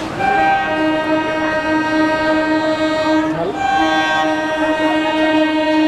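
Train horn sounding in two long, steady blasts, with a short break a little over three seconds in.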